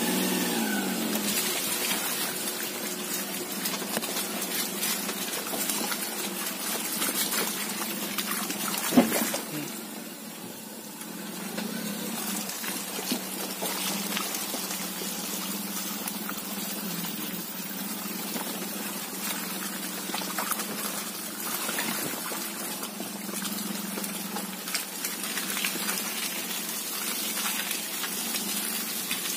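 Maruti Suzuki Alto 800's small three-cylinder petrol engine running steadily while its tyres churn and slosh through deep wet mud. One sharp knock about nine seconds in.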